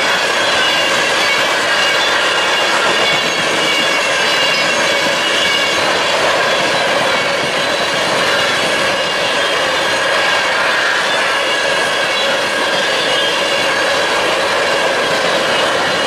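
Empty taconite hopper cars of a freight train rolling past at about 50 mph: a steady, loud rush of steel wheels on rail, with a wavering high ringing from the wheels above it.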